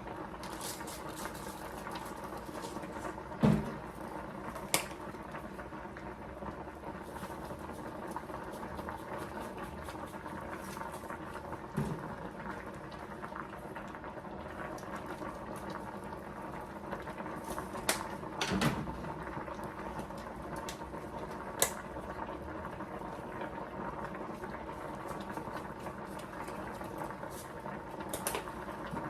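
Pot of beans boiling on the stove, a steady bubbling simmer, with a few sharp knocks and clicks of kitchen utensils spread through it.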